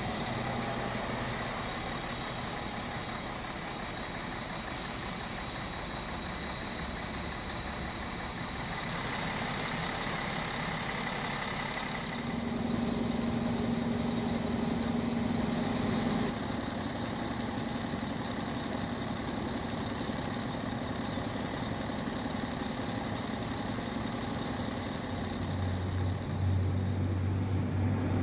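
Stadler Regio-Shuttle diesel railcar's MAN underfloor diesel engine running steadily while it stands at the platform. Near the end a deeper engine note comes in and grows louder as the railcar pulls away.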